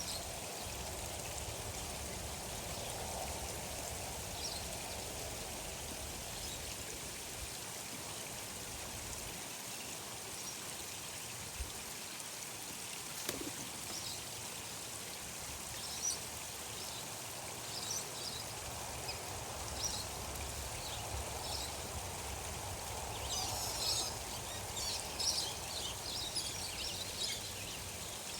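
Steady flow of running water, with short high bird chirps dotted through it, coming more often near the end.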